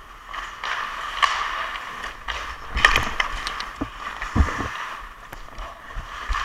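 Ice hockey skates scraping and carving on rink ice during play, with sharp stick clicks on the puck and ice about a second in and again near three seconds, and a couple of low thumps past the middle.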